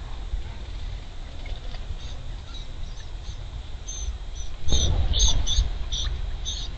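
A bird calling a quick series of short, high notes, about three a second, faint at first and louder from about four seconds in. A sudden rush of low noise comes in about four and a half seconds in.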